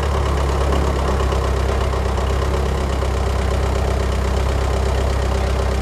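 Forklift engine sound effect running steadily, a loud, even motor sound with a deep low rumble.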